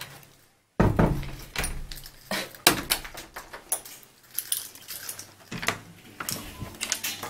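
Keys jangling and clinking among irregular sharp clicks and clothing rustle. There is a brief dropout to silence just under a second in, after which the sound starts again abruptly.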